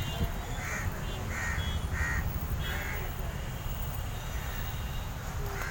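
A bird calling about four times in a row, roughly one call every two-thirds of a second, over a steady low rumble.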